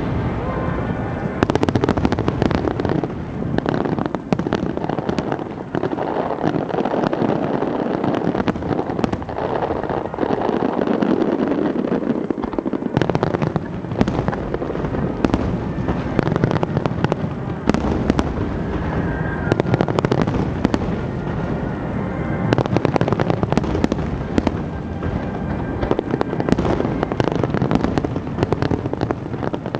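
Aerial fireworks display: a dense, continuous barrage of shell bursts and crackling, with sharp reports following one another closely.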